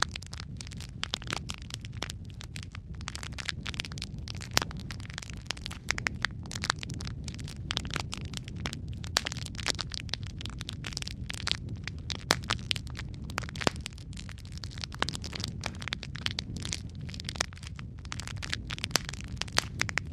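Wood fire in a fireplace, logs burning with a steady low rumble and frequent sharp crackles and pops.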